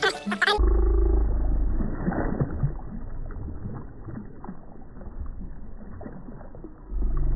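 A muffled deep rumble with all the higher sound cut off, loud for about a second near the start, fainter through the middle, and loud again near the end.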